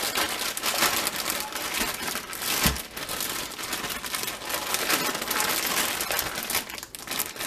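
Plastic zipper bag crinkling as hands knead and shake pig's feet and seasonings around inside it. A single thump comes about two and a half seconds in.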